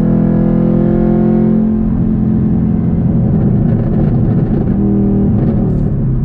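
2022 Camaro ZL1's supercharged 6.2-litre V8 through an H-pipe catback exhaust, heard from inside the cabin while driving: a steady low drone for the first couple of seconds, then a rougher, shifting engine note with road noise beneath.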